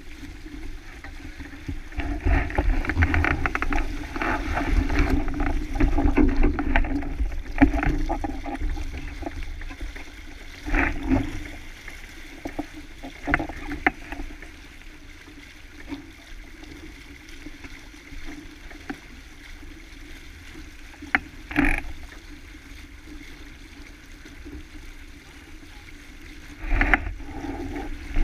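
Wind buffeting the microphone and water rushing along the hull of a sailing boat under way, loudest in the first several seconds, with a few short sharp knocks scattered through the rest.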